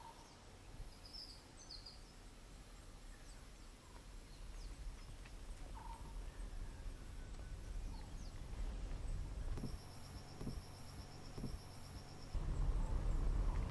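Faint rural roadside ambience: a few short high bird chirps, a thin high insect buzz that comes and goes, and a fast pulsed trill about ten seconds in. A low rumble swells louder near the end.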